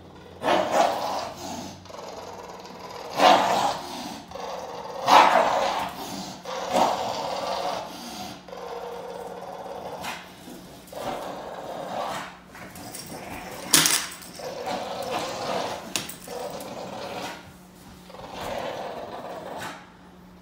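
Shortybull growling in repeated rough bursts while tugging on a plush toy: play growling in a game of tug-of-war. A few bursts are louder and sharper, the loudest about 14 seconds in.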